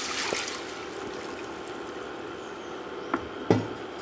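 Filtered wheat milk pouring into a hot, ghee-coated nonstick pan, its hiss fading over the first half second. Two sharp knocks come near the end.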